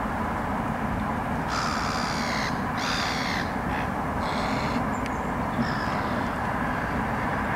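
Harsh, raspy bird calls, three in a row (about a second and a half in, around three seconds, and around four and a half seconds), over a steady low background rumble.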